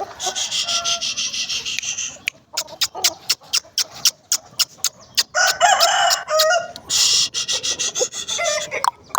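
Aseel roosters crowing in hoarse, raspy calls, with many short sharp clucks in between; the clearest, most tuneful crow comes about halfway through.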